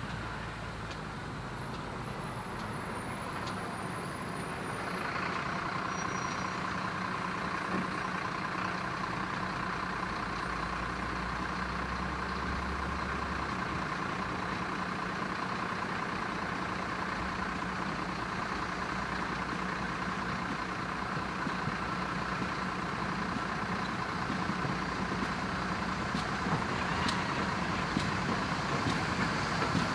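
GWR Small Prairie 2-6-2 tank locomotive approaching slowly with its coaches: a steady rumble and hiss that grows louder toward the end.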